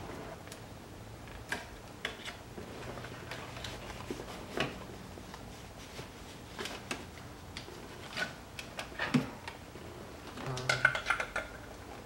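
Scattered clicks and light knocks of hard plastic car interior trim being handled as the shifter trim panel and shift boot are worked loose and lifted off the center console, with a quick run of clicks near the end.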